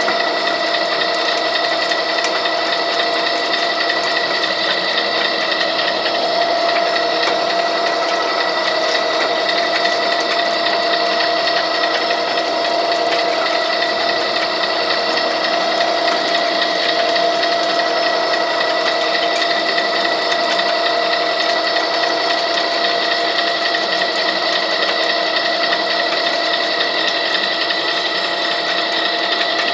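Wheeler-Rex 6590 six-inch pipe threading machine running steadily under its gear drive and condenser motor, giving an even mechanical hum with a few steady tones.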